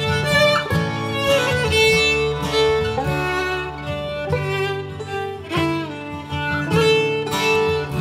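Instrumental break of a folk song: acoustic guitar playing, with a melody of long held notes over it.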